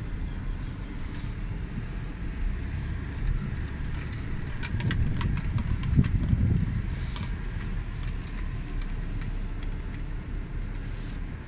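Car cabin noise while driving slowly: a steady low rumble of engine and tyres. Between about three and seven seconds in there is a run of sharp clicks and knocks, and the rumble swells to its loudest about six seconds in.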